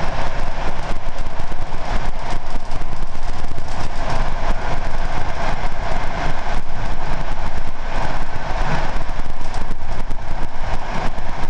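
A PKP Intercity TLK passenger train running along the track, heard from its last carriage: a loud, steady running noise of wheels on rail with continual rattling and clatter.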